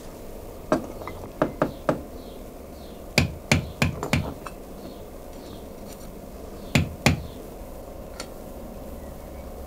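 Sharp taps and knocks of small metal knife parts and tools against a workbench and metal tins while hollow metal knife handles are filled with sand and resin powder. About ten hard taps come in three short groups: around one to two seconds in, around three to four seconds in, and twice near seven seconds.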